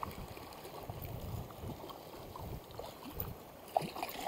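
River current running and lapping around a wading angler, with a short splash near the end as a trout is let go into the water.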